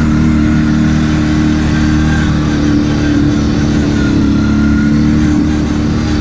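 Kawasaki KFX 700 ATV's V-twin engine running at a steady pitch under way.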